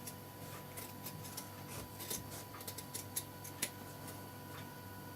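Scissors cutting through lightweight interfacing: a string of irregular faint snips and clicks, over a steady faint hum.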